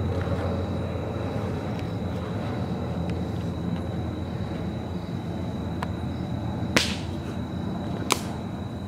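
Steady low rumbling background noise with a thin high whine, broken by two sharp cracks about a second apart near the end.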